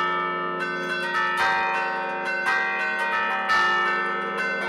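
A set of church bells played from a wooden bell keyboard: the levers pull the clappers against the hanging bells in quick succession, playing a tune of overlapping, ringing tones. The heavier strokes come about once a second.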